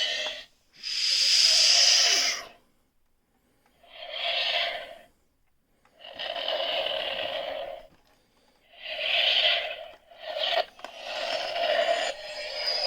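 A Millennium Falcon toy's small speaker playing a run of noisy starship sound effects, about seven separate bursts of a second or two each with short pauses between them.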